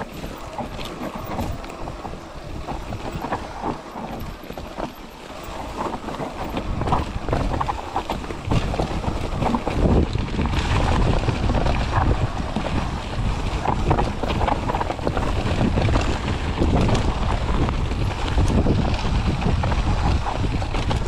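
Mountain bike (Mondraker Foxy) descending a rocky, needle-covered trail: wind rushing over the camera microphone, tyres rolling over rocks and pine needles, and many quick clicks and rattles from the bike over the bumps. It gets louder and rougher from about halfway through.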